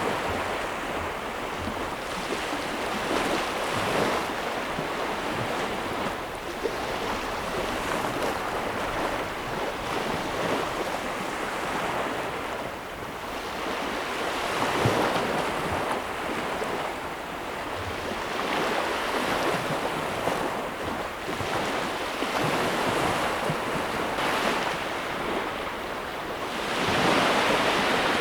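Ocean surf: waves washing in with a steady rushing that swells and falls every few seconds, the biggest surge near the end.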